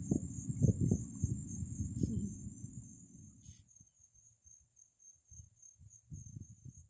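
Steady high-pitched insect drone, summer crickets or similar, holding one pitch throughout. Low rumbling thumps on the microphone are loudest for the first two to three seconds, then thin out to a few faint bumps.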